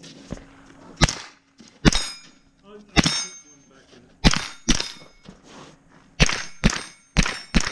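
Rifle shots at steel plate targets: about nine shots at uneven spacing, from under half a second to about a second apart, each followed by the brief ring of a hit steel plate.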